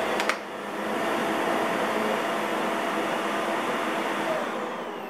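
Vax Air Stretch Pet Max upright vacuum cleaner running steadily, with a click just after the start. About four seconds in, the motor note falls and the noise begins to die away as it is switched off.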